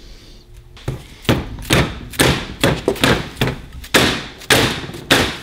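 Metal hammer striking a Honda CT70 front fork tube, about ten sharp blows at roughly two a second starting about a second in, each with a short metallic ring, to knock the fork apart.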